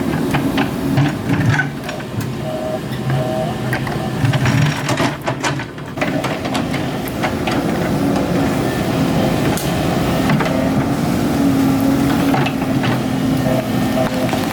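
Excavator engine running steadily under work, with scattered knocks and clanks; the engine note dips briefly around the middle, then steadies and rises a little.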